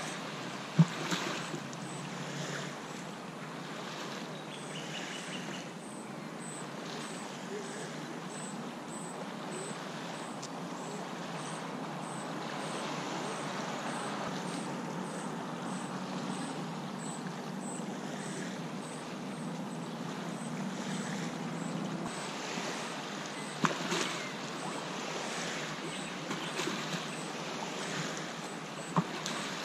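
Small waves lapping on a sandy lakeshore, with a steady hiss of water and light wind. There are a few sharp clicks, and a low hum through the middle that cuts off suddenly about three-quarters of the way through.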